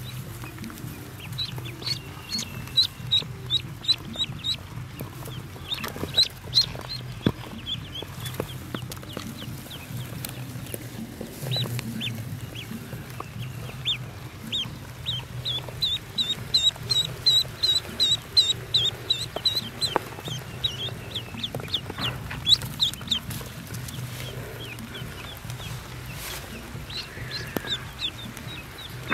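Newly hatched ducklings peeping: quick runs of short, high, falling peeps, busiest a little past halfway.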